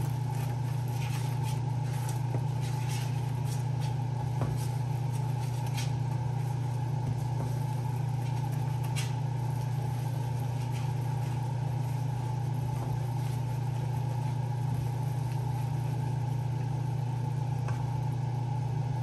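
A spoon scrapes and taps against a cooking pot in short clicks over the first six seconds or so as the seasoned mixture is stirred, with a few lone clicks later. A steady low mechanical hum runs underneath and is the loudest sound.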